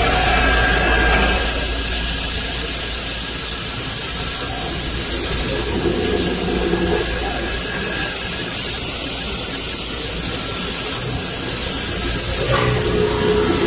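CNC beam drilling machine running, a steady hiss with a few faint tones over it.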